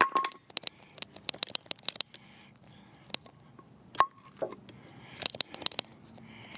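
A freshly cut wooden board being handled and laid down on a concrete slab. There is a sharp knock at the start and a louder one about four seconds in, among many lighter clicks and taps.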